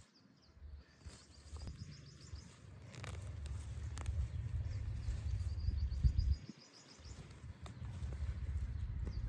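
Outdoor rural ambience: a steady low rumble that drops out briefly past the middle, with trains of faint high chirps from insects or birds and a few scattered clicks.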